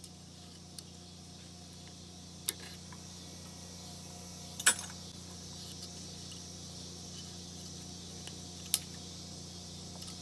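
Steel piston rings clicking as they are worked off a lawnmower engine's piston by hand: a few sharp metallic ticks, seconds apart, the loudest about halfway through, over a steady low hum.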